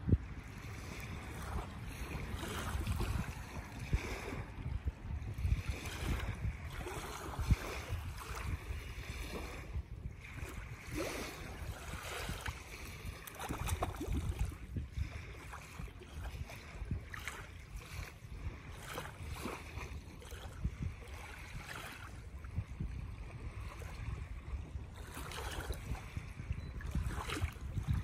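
Small waves lapping at a sandy shore, with wind buffeting the microphone in an uneven low rumble.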